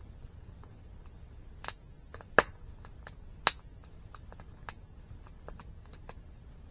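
Wood campfire crackling: scattered sharp pops and snaps, the two loudest about two and a half and three and a half seconds in, over a steady low rush of a nearby waterfall and a faint steady high-pitched tone.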